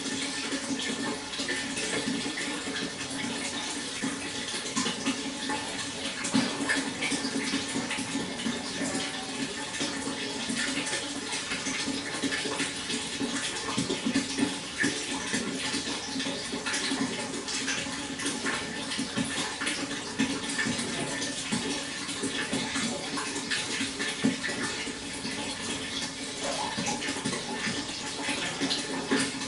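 Water flowing and splashing steadily, with a constant rush dotted with many small splashes.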